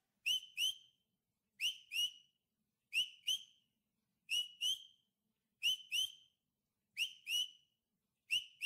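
High, whistle-like double chirps, two short slightly rising notes about a third of a second apart, repeating steadily about every 1.3 seconds, seven times.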